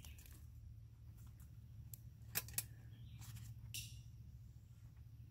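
A few faint, sharp clicks and a light scrape of metal camp cookware being handled as the lid of the muffin pot is lifted to check the bake.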